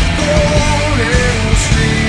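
Rock song with a sung melody line over a steady beat.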